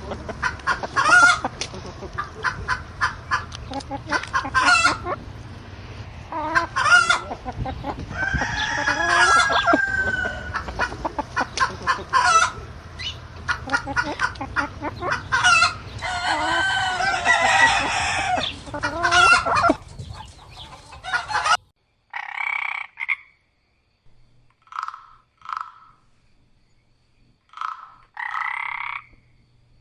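Chickens clucking with a rooster crowing over them, a dense run of calls that stops abruptly. Short croaking calls follow, spaced out with quiet between them.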